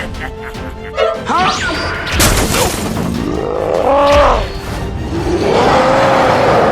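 Cartoon soundtrack: music with impact sound effects, including a loud crash about two seconds in.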